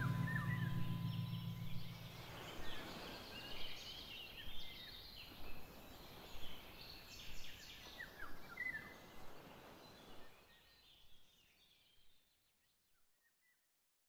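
Birds chirping and calling in short repeated phrases over a faint outdoor background hiss, fading out about ten to twelve seconds in.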